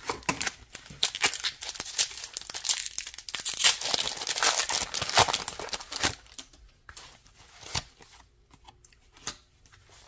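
Foil wrapper of a Pokémon card booster pack being torn open and crinkled. After about six seconds it thins out to a few scattered soft clicks as the cards are handled.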